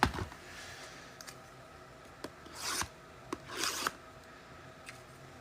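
Cardboard trading-card box being handled: a knock at the start, a few light taps, then two short scraping rubs of cardboard about two and a half and three and a half seconds in.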